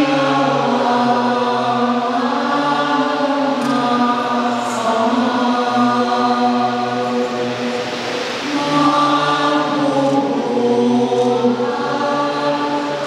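Choir singing a chant-like melody in long held notes, with a brief dip a little past the middle before the voices go on.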